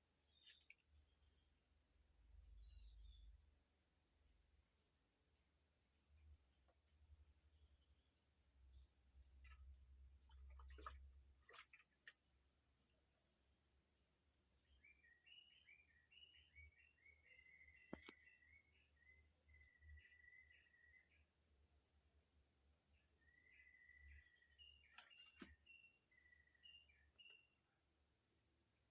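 Steady high-pitched drone of insects. Birds chirp repeatedly through the second half, and there are a few faint clicks.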